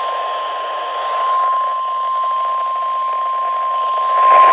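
NOAA Weather Radio 1050 Hz warning alarm tone: one long, steady, high beep over radio static, the signal that a warning message follows.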